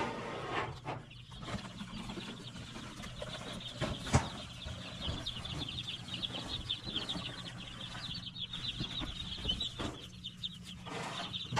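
Many baby meat chicks peeping at once in a dense, continuous stream of high, rapid chirps, with rustling and a sharp knock about four seconds in as they are tipped out of their shipping box.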